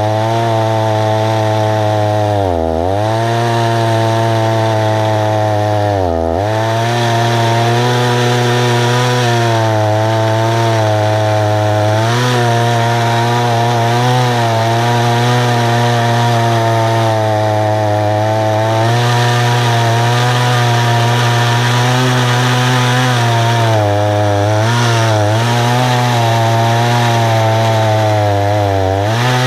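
Husqvarna 288 two-stroke chainsaw running steadily at high throttle in an Alaskan mill, ripping a tulip poplar cant lengthwise. The engine note sags briefly twice in the first few seconds and wavers slightly near the end as the load on the chain changes.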